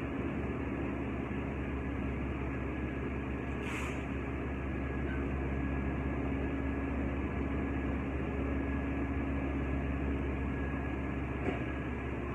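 Steady machine hum with a thin high whine running over it, and a faint tap about four seconds in and again near the end.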